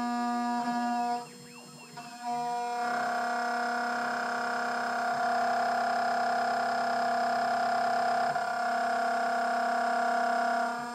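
CNC milling machine face-milling an aluminium block: a steady whine made of several tones at once. It drops away briefly about a second in and comes back louder a couple of seconds later, carrying on steadily as the cutter works across the block.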